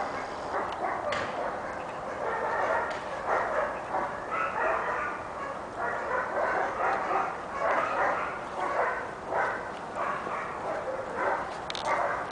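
A dog barking and yipping over and over, two or three short barks a second.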